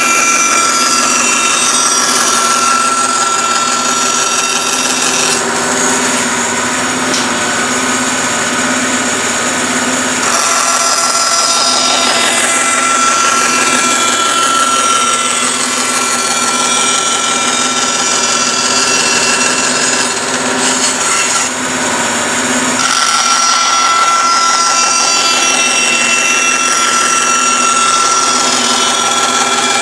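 Bandsaw running and cutting through a wooden board, a steady machine sound with a constant tone, changing abruptly a few times.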